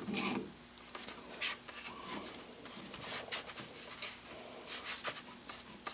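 Scattered light metal clicks and scrapes of small lathe parts handled and fitted: the graduated dial collar of a Clausing lathe's compound slide being slid onto its feed-screw shaft.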